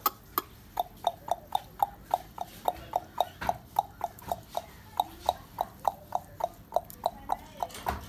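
A long, even series of sharp clicks, about three or four a second, each with a short tock-like note.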